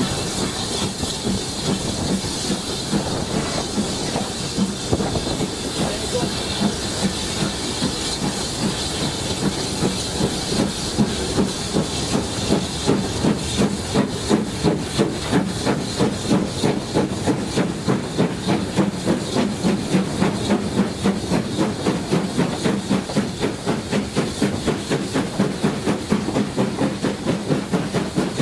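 BR Standard Class 4 2-6-4T tank locomotive 80080 working under steam, heard close up from its side: a steady hiss of steam, with the exhaust beats growing into a clear, quick, regular chuff after about ten seconds.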